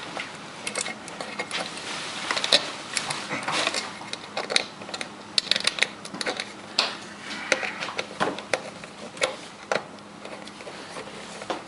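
Irregular small clicks, taps and scrapes of hands working a receptacle and its wires into an electrical box.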